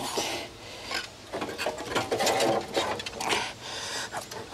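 Metal hand tools clicking, rattling and scraping irregularly against a car's headlight assembly as a stuck headlight plug is worked at.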